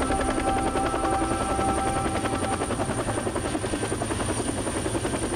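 Rescue helicopter hovering overhead, its rotor blades beating in a rapid, steady chop.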